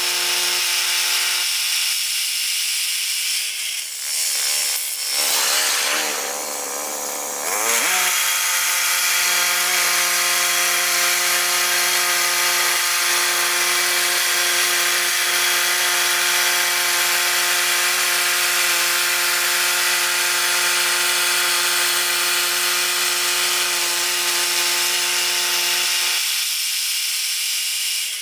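Woodland Mills portable band sawmill running steadily, its engine under load as the band blade rips a long log into 2x10 boards. The engine note wavers for a few seconds about four seconds in, then settles again.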